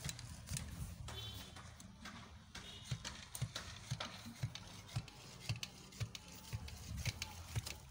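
Soil being dug and tamped by hand in a small pit of dry earth: a run of dull knocks, about two a second, starting about three seconds in.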